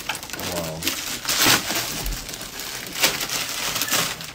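Crinkling and rustling of gift packaging and wrapping being handled, in a few short noisy bursts.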